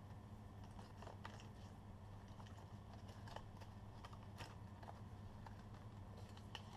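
Faint scattered clicks and taps of Nespresso cardboard capsule sleeves and aluminium capsules being handled, over a low steady hum.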